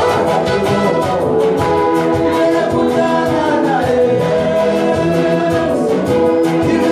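Music: voices singing over brass and a steady beat.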